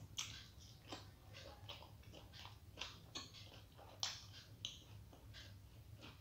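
Close-up chewing of soft steamed vegetable momos: irregular wet mouth clicks and smacks, with sharper ones just after the start, about a second in and about four seconds in.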